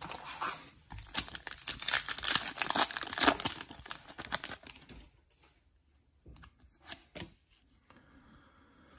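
Foil wrapper of a trading card pack being torn open and crinkled for about five seconds, followed by a few light clicks as the cards inside are handled.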